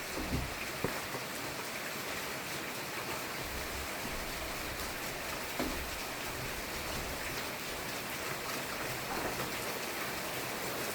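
Steady rain falling as a continuous hiss, with a few sharper drop taps, one near the start and one around the middle.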